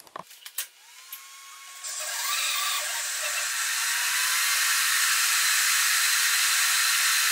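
CNC mill's Z axis jogging the spindle and stock down: after a few light clicks, a steady hissing machine whine from the axis drive sets in about two seconds in, with a faint tone slowly rising in pitch.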